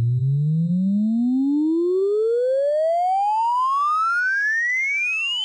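Thor software synthesizer in Reason playing a simple sine-wave riser: one clean tone gliding steadily upward in pitch from low to very high, its pitch driven by a ramp-up LFO on the oscillator.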